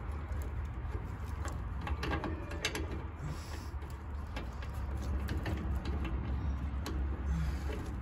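Light, scattered metallic clicks and scrapes of a brass refrigerant gauge-hose fitting being threaded by hand onto an air conditioner's high-side service port, over a steady low hum.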